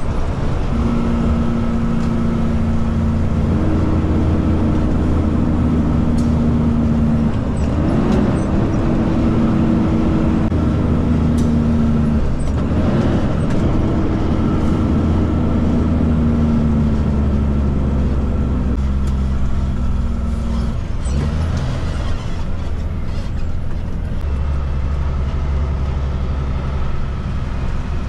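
Kenworth K200 cabover truck's Cummins diesel engine running under way, heard inside the cab. It is a steady, loud hum whose pitch steps up and swells a few times, then settles lower near the end.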